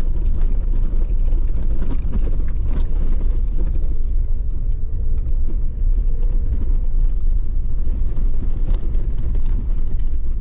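Suzuki Jimny JB74 driving over a rough dirt trail: a steady low rumble of engine and tyres, with occasional knocks and rattles from the bumpy surface.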